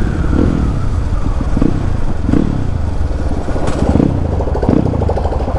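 A 250 cc dirt bike's single-cylinder engine running at low speed as it is ridden slowly, with short swells in the engine note every second or so, heard close up with a steady low rumble of wind on the helmet microphone.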